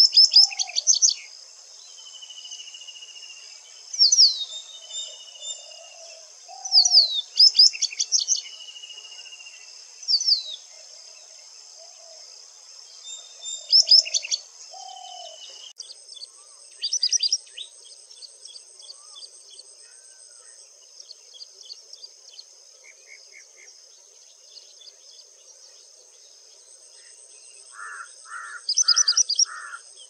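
White-browed wagtail singing: loud phrases of sharp, sweeping whistled notes every few seconds, sparser in the second half, over a steady high insect drone. Near the end come three short, lower notes.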